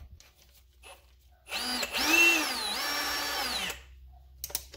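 Ryobi One+ HP brushless hammer drill (PBLHM101) running briefly on the trigger, no load. The motor spins up, dips in pitch and rises again, then stops after a little over two seconds. A few light clicks near the end.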